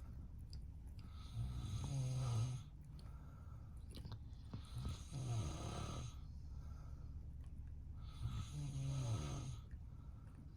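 A man snoring in his sleep: three long snores about three and a half seconds apart, with quieter breathing between them.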